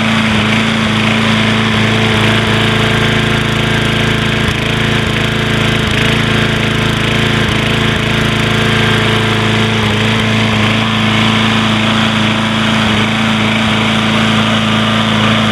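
Older Troy-Bilt push lawn mower's primer-button small engine running steadily at a constant speed.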